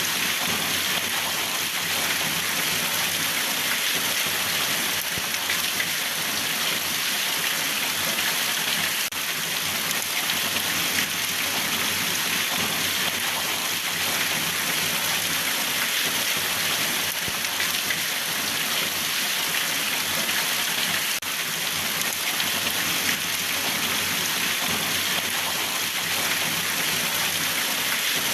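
Steady rain falling, an even hiss of many drops without pauses or distinct events.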